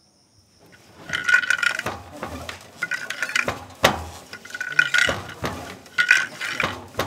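Wooden hand loom clacking as a weaver works it with her foot and hands: wooden knocks with short ringing clacks, about one every second, starting about a second in.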